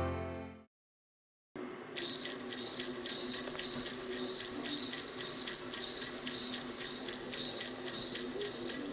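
Background music fades out, then a second of silence, then a music track with jingle bells shaken in a steady beat, a few shakes a second.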